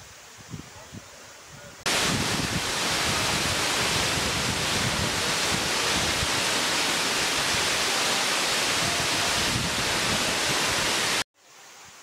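Waterfall roar: a loud, even rush of falling water that cuts in abruptly about two seconds in and stops just as abruptly near the end. Before it, only a quieter background rush.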